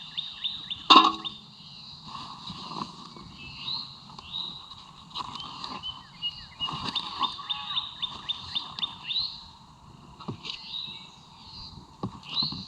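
Songbirds singing and chirping, including a fast run of repeated high notes. About a second in there is a single sharp crack with a short ringing tone after it, the loudest sound. A few fainter clicks follow later.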